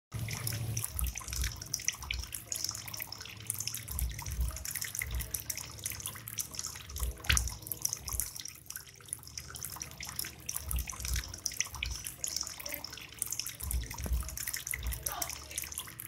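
Water trickling and splashing steadily as thin streams pour from the bamboo spouts of a small tiered fountain into a pebble-filled basin, with many small droplet clicks.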